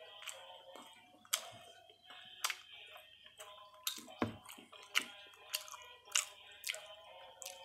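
Chewing with sharp, irregular mouth clicks and smacks, one every half second to a second, while eating a toasted cheese sandwich. Soft background music runs underneath.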